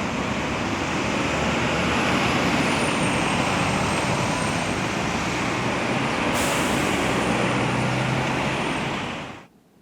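Street traffic: road vehicles passing, with a large vehicle's engine running steadily for a couple of seconds near the end. The sound cuts off suddenly just before the end.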